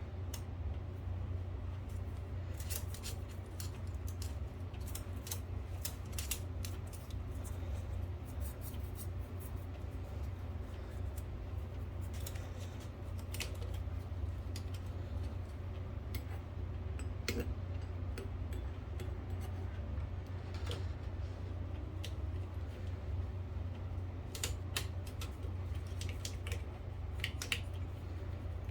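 Scattered light metallic clicks and taps of small parts and tools being handled on a typewriter's mechanism, over a steady low hum.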